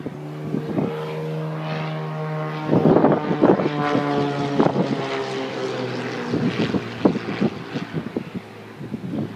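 Propeller aircraft engine running as the plane flies past, its drone slowly dropping in pitch, with gusts of wind buffeting the microphone.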